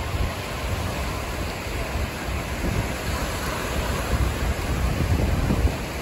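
Ocean surf: small waves breaking and washing in close by, a steady rushing noise, with wind rumbling on the microphone.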